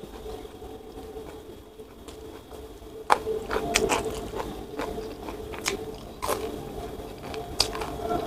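Close-miked mukbang eating: a person chewing a mouthful of rice and side dishes, with a string of sharp crunching and smacking bites starting about three seconds in, over a steady low hum.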